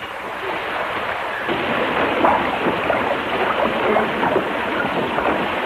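Water pouring and splashing off a mill's water wheel, a steady rush that grows louder about a second and a half in.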